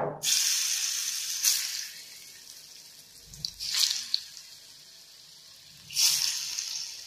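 Hot oil sizzling in a kadhai as slices of steamed colocasia-leaf roll (patra) are dropped in one at a time for shallow frying. The sizzle starts suddenly and flares up with each new piece, about four times, dying down between.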